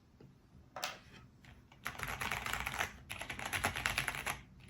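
Typing on a Cherry MX 8.3 mechanical keyboard fitted with Cherry MX2A jade clicky tactile switches: one short burst of keystrokes about a second in, then a fast, dense run of key clicks from about two seconds in until shortly before the end.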